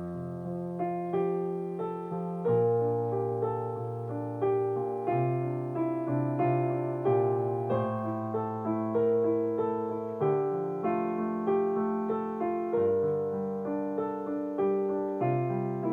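Slow, relaxing piano music: notes and chords struck a little more than once a second, each ringing and fading, over a low bass line.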